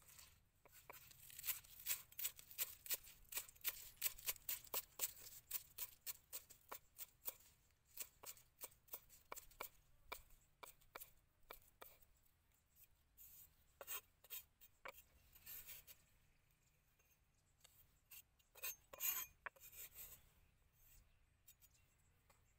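Cleaver chopping spring onions on a thick round wooden chopping block: a steady run of sharp knocks, about two to three a second. It thins out after about 16 seconds into a few scattered knocks.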